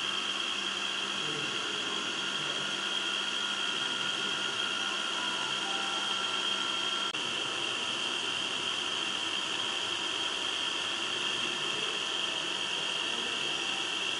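Pin-on-disc tribometer running, its disc spinning under the loaded test pin: a steady high-pitched whir and hiss. The sound drops out for an instant about seven seconds in, and a fainter lower tone stops there.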